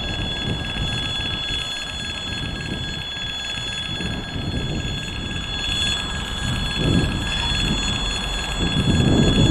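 Level-crossing warning bell ringing steadily, the signal that a train is approaching. Under it is a low engine rumble that grows louder near the end.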